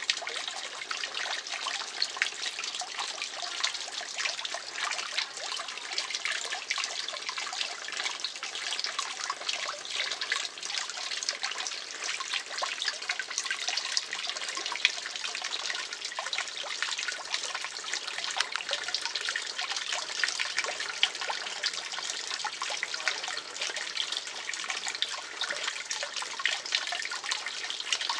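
Garden pond water trickling steadily, with many small splashes at the surface.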